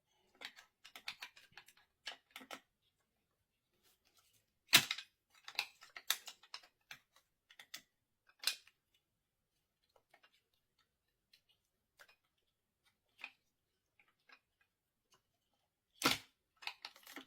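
Irregular clicks and sharp knocks of an Allen key working at a stubborn screw on the e-scooter that will not come loose. The loudest knock comes about five seconds in, with another near the end.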